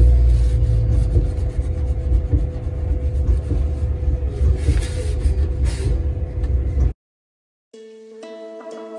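Low rumble with a steady hum, which cuts off abruptly about seven seconds in. Soft plucked-string background music starts a moment later.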